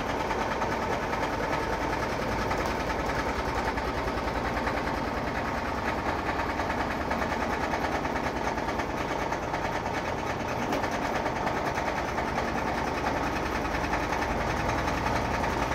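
Washing machine spinning with its tub shaking violently, a steady loud rattle with fast, even pulsing: the sign of worn suspension rods that no longer damp the tub in the spin cycle.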